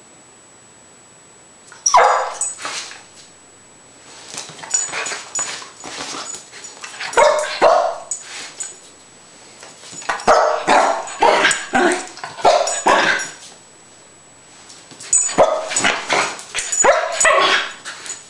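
Rat terrier barking and yipping in quick runs of a few seconds each, four times, with short pauses between. Sharp knocks are mixed in with the barks.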